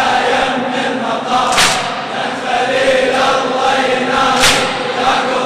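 A large male congregation chanting a Shia latmiya lament refrain in unison. Twice, about three seconds apart, comes a loud, sharp collective strike: the mourners beating their chests together in time with the chant.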